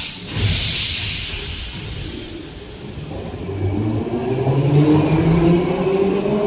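Metrowagonmash 81-series metro train pulling away from the platform. A hiss of air comes at the start, then the traction motors' whine rises steadily in pitch from about three seconds in as the train accelerates.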